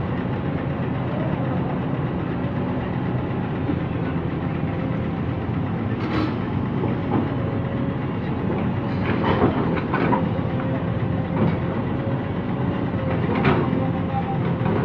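Jonyang JY623E excavator's diesel engine running steadily under working load, with a steady whine and several sharp knocks and clanks scattered through, the sounds of the machine digging and loading.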